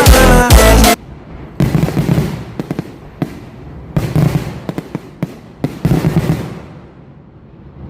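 Loud music for about the first second, cut off abruptly, then fireworks going off: a string of sharp bangs with crackling after them over about five seconds, dying away near the end.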